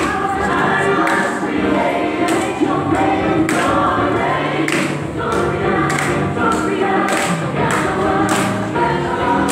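A choir singing a gospel song in harmony, with a sharp beat struck about once a second.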